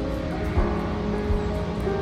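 Background music: held, sustained notes over a low beat that falls about every three quarters of a second.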